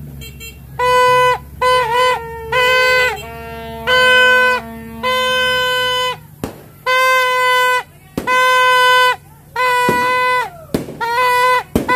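Torotot, Filipino New Year party horns, blown in a string of loud honks, each half a second to a second long. A few bend or slide in pitch and some overlap. A few sharp pops come in the second half.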